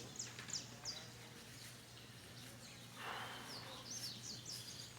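Birds chirping: quick series of short, high, down-slurred notes at the start and again in the second half. A brief rustling hiss about three seconds in.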